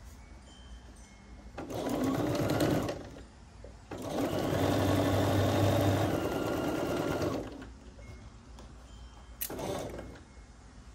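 Bernina B 770 Quilter's Edition Plus sewing machine stitching quilt pieces in three runs: a short run, a longer one of about three and a half seconds, and a brief burst near the end.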